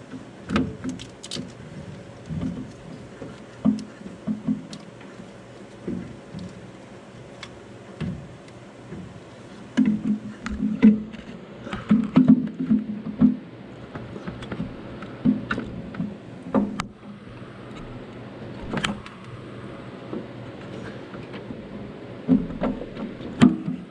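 Irregular clunks, knocks and rubbing of a power steering pump being maneuvered by hand against its mounting bracket on the engine, busiest about ten seconds in and again near the end.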